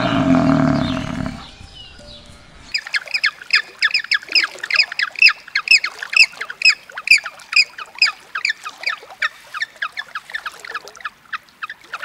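Penguins calling: a long run of quick, high honking calls, about four a second, that starts near the three-second mark and stops shortly before the end. Before it, a low animal call ends about a second and a half in.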